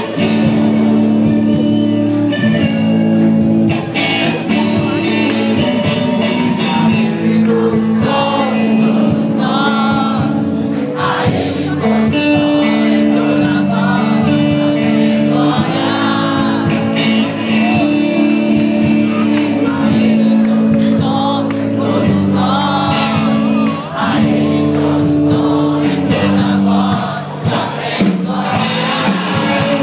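A live rock band playing a Christian song: electric guitars and band at full volume, with singing over them.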